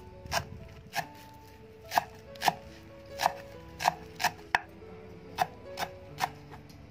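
Cleaver chopping green stalks on a thick wooden chopping board: sharp, uneven knocks, about one to two a second.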